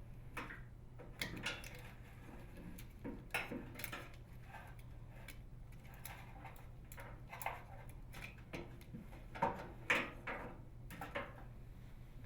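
Scattered sharp clicks and taps of small plastic parts being handled: microwave door interlock switches being unclipped from the retaining tabs of the old door latch bracket.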